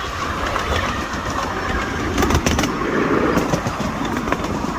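7¼-inch ridable miniature railway train running along its track, a steady rumble of wheels and locomotive with a few sharp clicks. It swells for about a second in the middle.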